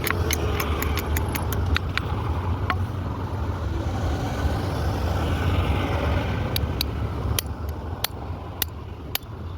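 A motor-driven machine running with a steady low hum, with sharp clicks throughout that thin out in the middle.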